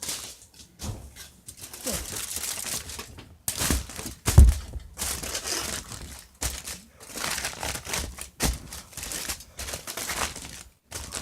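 A thin sheet being crumpled and crinkled by hand in repeated bouts, with a loud thump about four seconds in.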